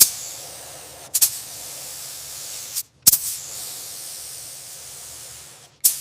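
Paint spray gun hissing as it sprays, in repeated passes that stop briefly and restart with a sharp burst: about a second in, again around three seconds, and just before the end.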